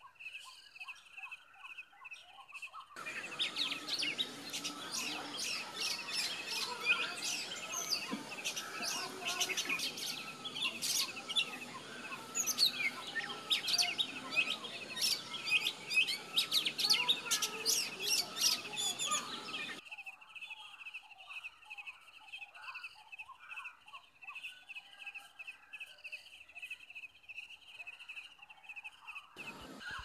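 Oriental magpie-robin singing: a quick run of sharp chirps and whistles over a rushing background from about three seconds in to about twenty seconds in. Before and after that, softer chirps over a steady, pulsing high buzz.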